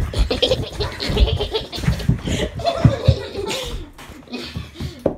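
A person laughing under their breath close to the microphone, mixed with rustling and many soft knocks from the phone being handled.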